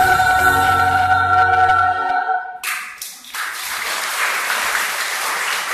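Children's choir holding the final chord of a song over a low sustained note; the low note stops about two seconds in and the voices cut off shortly after. Applause then breaks out and continues.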